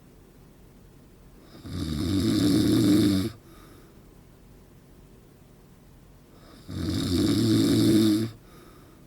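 A man snoring: two long, loud snores about five seconds apart, each lasting under two seconds, with quiet breathing between.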